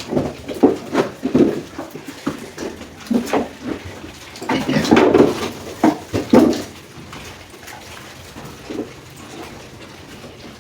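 Pigs grunting in many short, separate calls, busiest and loudest in the first seven seconds and then dying down.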